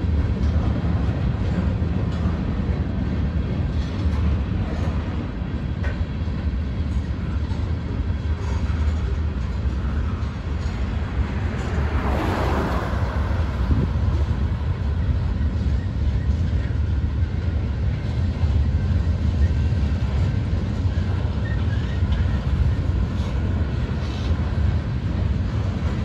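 Freight cars of a manifest train rolling past with a steady low rumble of wheels on rail. About twelve seconds in, a road vehicle passes close by, briefly louder.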